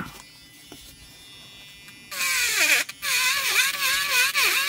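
Dspiae portable electric grinder pen starting up about two seconds in and cutting into hard wood: a high motor whine over a grinding hiss, its pitch dipping and wavering as the bit bears into the wood, with a brief break just before the middle.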